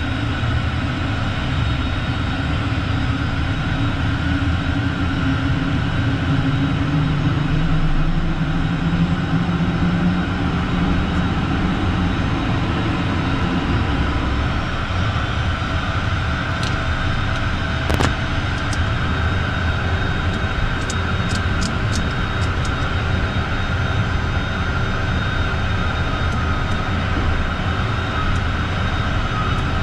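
Twin Williams FJ44 turbofan engines of a Beechcraft Premier I running on the ground, heard from inside the cockpit as a steady roar with a whine, a low tone rising slightly early on. A sharp click about halfway through, then a few lighter clicks.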